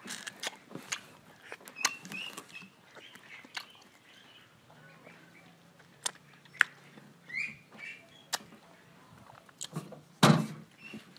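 Close mouth sounds of a man eating mango slices: wet lip smacks, sucking and sharp little clicks, scattered irregularly. The loudest sound is a sharp knock about ten seconds in, as another slice is taken from the metal tray.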